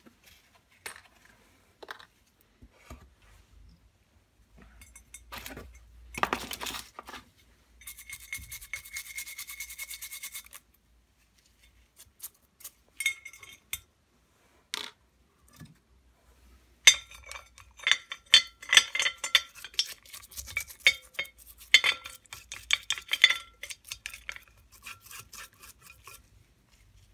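A stiff brush scrubbing oily metal clutch parts in a glass bowl of paraffin. The scrubbing comes in spells of quick strokes, the longest in the second half, with metal parts clinking and knocking against the glass.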